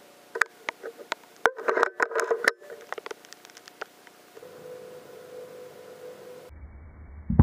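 Scattered sharp clicks and light knocks, then a faint steady hum. Right at the end, a Walther Reign M2 PCP air rifle fires a single loud shot.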